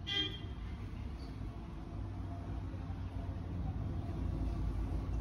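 Steady low background rumble with a faint hiss, swelling slightly about four seconds in. A short, brief sound comes just at the start.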